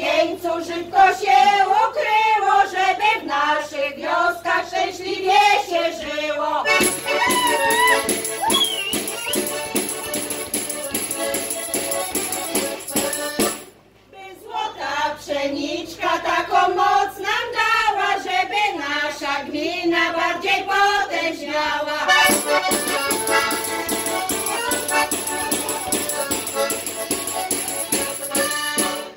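A women's folk group singing together with accordion accompaniment. The singing stops for an accordion interlude about seven seconds in, a second sung verse begins about halfway through, and the accordion plays another interlude near the end.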